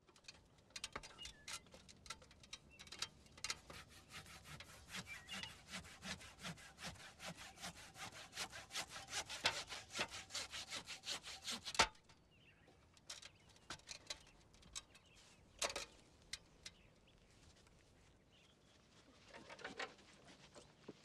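Sawing through wood in fast, rhythmic rasping strokes, which stops suddenly with a sharp knock about twelve seconds in. Scattered scrapes and knocks follow.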